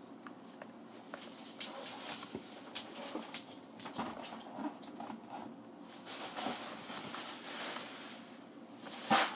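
Soft handling noises of a plastic Play-Doh playset and modelling dough being pulled apart: scattered small clicks and rustles, with one louder knock near the end.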